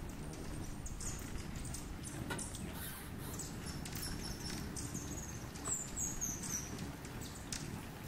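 Hummingbirds chipping and giving short squeaky twitters at feeders, with a run of four quick falling squeaks about six seconds in, over a steady low rumble.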